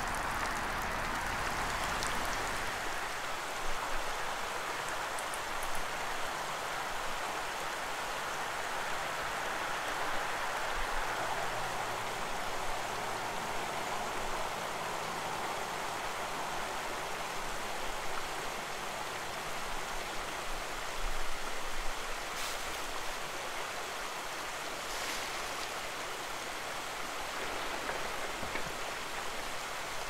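Steady rush of flowing river water, an even hiss with no break.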